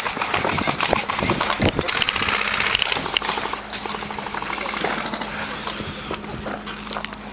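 Airsoft guns firing rapid bursts, a fast rattle of shots, densest in the first few seconds and then thinning out.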